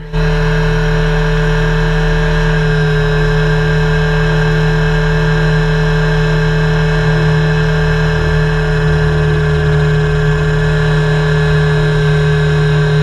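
Helicopter running steadily: a loud, constant whine at an unchanging pitch over a low, even hum.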